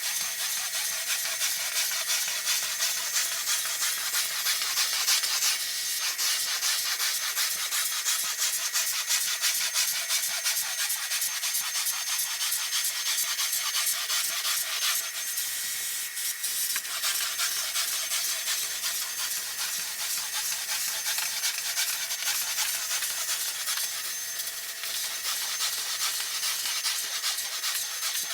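Counter-rotating brush (CRB) carpet machine scrubbing carpet: a dense, steady brushing noise over a constant motor whine, changing briefly three times as the machine is moved.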